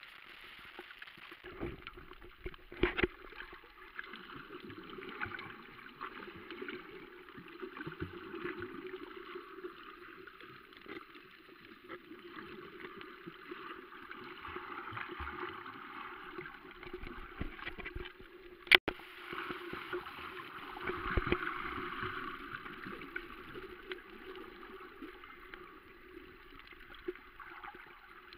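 Muffled underwater water noise, sloshing and gurgling as heard by a camera under the surface, with scattered clicks and one sharp click about 19 seconds in. The water noise swells briefly a little after that.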